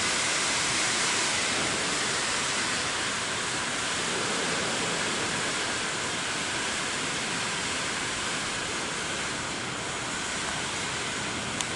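A steady, even rushing hiss that eases off slowly, with a single short click near the end.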